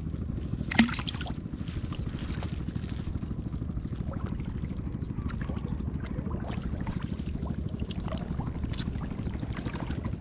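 Water trickling and splashing as a fishing net is lifted out of a lake and checked, over a steady low rumble. A single sharp knock sounds about a second in.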